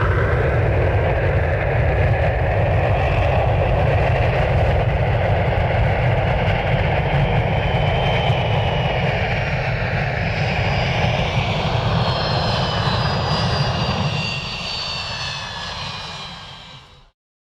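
Airliner landing: loud, steady engine noise with rushing air, then a high turbine whine sliding down in pitch as the engines spool down. The noise fades away over the last few seconds and cuts off just before the end.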